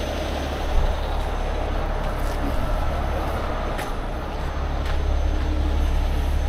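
Heavy rotator tow truck's diesel engine running steadily as a low, even rumble, with a few faint ticks over it.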